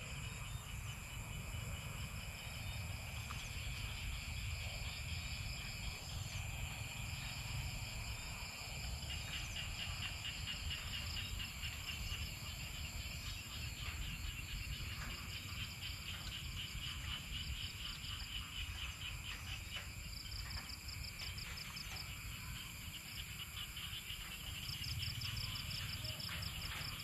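Evening chorus of crickets and other insects: steady high-pitched trilling, with several overlapping, rapidly pulsing trills coming and going, over a faint low rumble.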